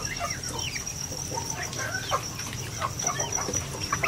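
Chickens clucking and cheeping in short, scattered calls, over a steady high-pitched whine.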